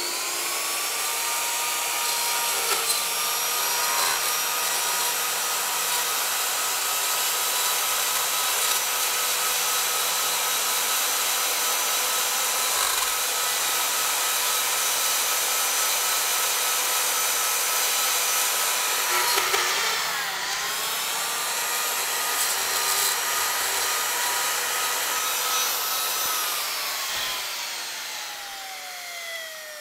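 Handheld electric rotary carving tool running at high speed with a steady whine, its bit grinding into the wood of pruning stubs on a cork oak bonsai to blend the cuts in. It spins up at the start, its pitch dips and recovers about two-thirds of the way through, and it winds down with a falling pitch near the end.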